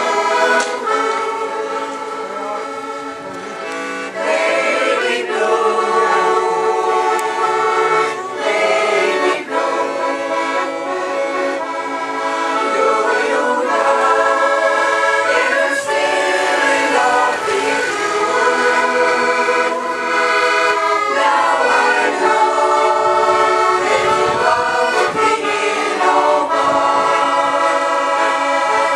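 Women's choir singing, accompanied by an accordion.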